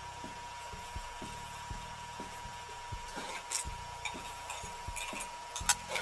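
Egg frying in a nonstick pan, a steady faint hiss under a steady thin hum. A few sharp clicks of a metal spatula and the pan being handled come in the second half, the loudest just before the end.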